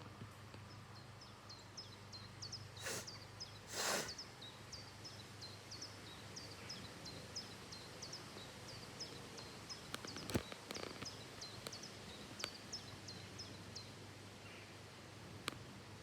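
A small bird chirping over and over, short high notes about two or three a second. Two brief bursts of noise about three and four seconds in, the second the loudest, and a sharp click near the middle.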